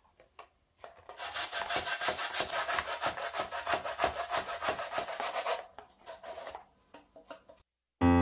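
Fresh coconut flesh grated on a stainless steel box grater, with quick, even rasping strokes about five a second, then a few slower, separate strokes near the end.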